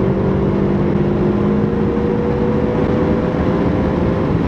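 Turbocharged flat-four engine and Invidia downpipe and cat-back exhaust of a 2003 Subaru WRX wagon, heard from inside the cabin while driving: a loud, steady drone at nearly constant revs, the pitch easing down slightly near the end.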